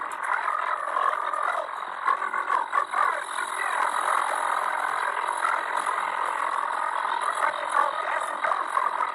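Animated film soundtrack of a racing pit stop (voices, crew and crowd noise) garbled by a heavy audio effect into a dense, warbling chatter with no words that can be made out.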